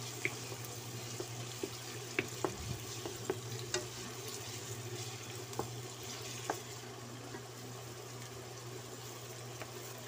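Chicken gizzards, onion and garlic sautéing in a nonstick wok, a light sizzle, with a wooden spatula clicking and scraping against the pan through the first six or so seconds and then fewer strokes.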